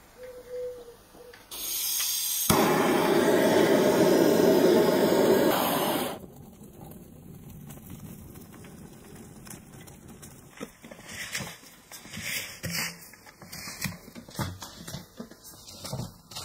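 A gas torch hissing loudly for about four seconds as it lights split firewood, then scattered crackles and knocks of the wood.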